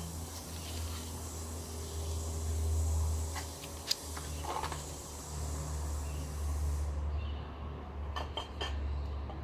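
A few short, light clinks, as of metal parts or tools being handled, over a steady low hum.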